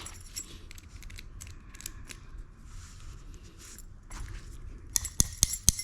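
Metal pick scraping and clicking inside a GM door lock cylinder while working the last wafers out. Near the end comes a quick run of sharp metallic clinks with a high ring.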